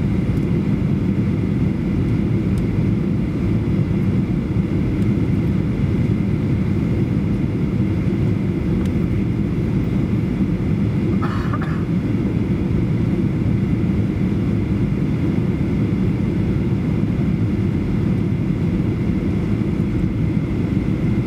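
Steady cabin noise inside a Boeing 737-800 on final approach, heard from a rear seat behind the wing: the drone of its CFM56-7B engines and the airflow. A brief higher sound comes about halfway through.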